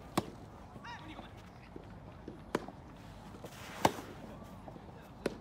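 Soft tennis rally: the soft rubber ball struck by rackets and bouncing on the court, four sharp pops a second and a half to two seconds apart, the loudest a little past the middle.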